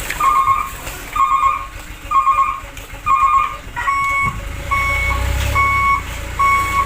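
A truck's reversing alarm beeping about once a second over a low engine rumble. The first four beeps warble, and from about four seconds in they change to plain steady beeps.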